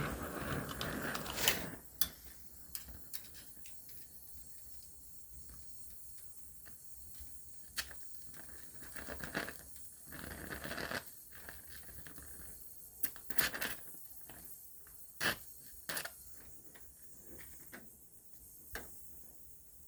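Welding on a car sill: short bursts of welding crackle, one near the start and a few more around the middle, with scattered sharp clicks and taps and quieter gaps between them.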